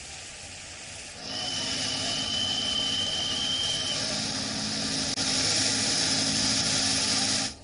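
A vehicle engine running steadily under a loud, even hiss, starting about a second in, with a thin high whine during the first few seconds of it.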